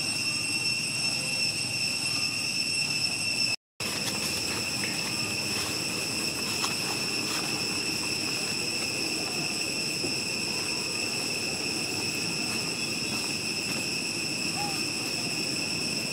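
Steady, high-pitched insect drone over a low background rumble. The sound cuts out completely for a split second a little over three and a half seconds in.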